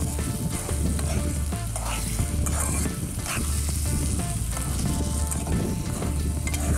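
Thick egg and tomato curry sizzling in a wide metal pan while a flat spatula stirs and scrapes through it, with frequent short scrapes and clicks against the pan.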